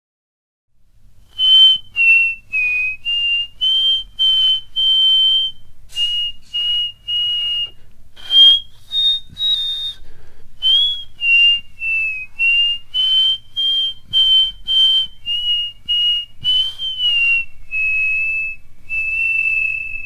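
A person whistling a slow tune in a long run of separate notes, each with a breathy start, stepping up and down within a narrow range and reaching its highest notes about halfway through. The last notes are held longer. A faint low hum runs underneath.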